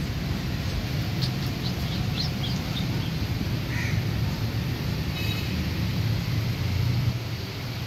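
Wind buffeting the microphone in a steady low rumble, with a bird calling a quick run of short, high, falling chirps about a second in and a few more brief calls later.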